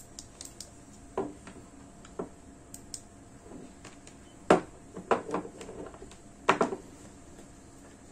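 Handling noise as a bicycle headlight, its battery pack and cables are picked up and set down on a wooden table: scattered clicks and knocks. The loudest two come about four and a half and six and a half seconds in.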